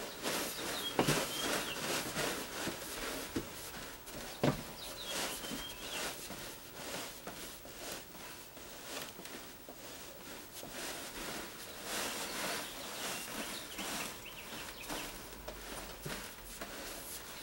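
Feet in socks shuffling and stepping on a shower stall base, pressing it down into its fresh mortar bed: soft, irregular scuffs and taps.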